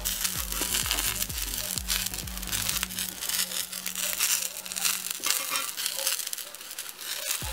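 Eggplant slices sizzling and crackling in hot oil in a cast-iron pan, with background music whose bass line fades out in the second half.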